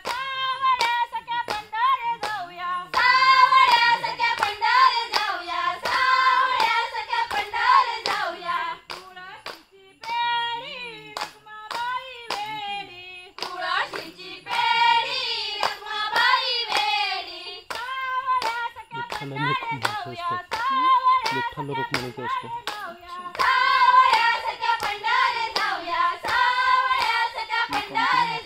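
A group of women singing a Konkani folk song together, keeping time with steady hand claps about twice a second. The singing comes in phrases with short breaks between them, while the clapping runs on.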